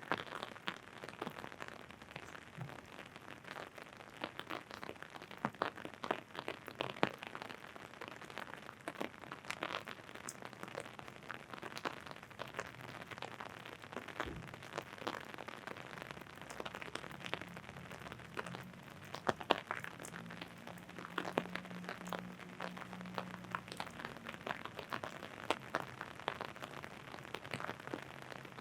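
Rain falling on an umbrella overhead: a steady patter of sharp drop ticks over a soft hiss. A low hum joins about halfway through and fades near the end.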